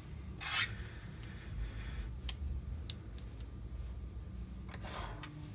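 Small 3D-printed plastic parts handled and fitted together by hand: scattered light clicks, with a short rustling scrape about half a second in and another near the end.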